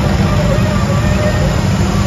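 Small engines of several riding garden tractors running steadily as they drive slowly past.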